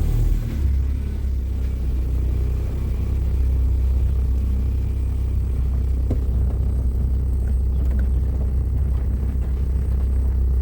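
Car engine running and road rumble heard from inside the cabin as the car drives along: a steady low rumble.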